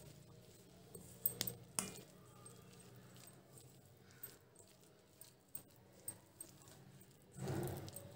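Spoon stirring thick gram-flour batter in a steel bowl: faint scraping with a few light clicks against the bowl, and a louder stretch of mixing near the end.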